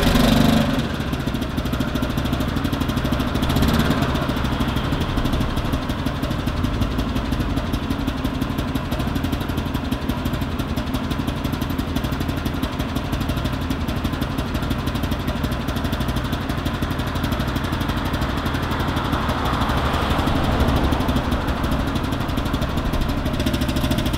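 Maxi-scooter engine idling steadily.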